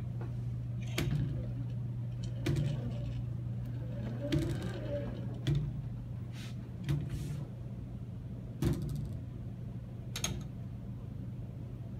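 CRS Catalyst-3 robot arm moving under its controller: a steady low hum, with a sharp click every second or two, seven in all, and a short whir that rises and falls about four seconds in.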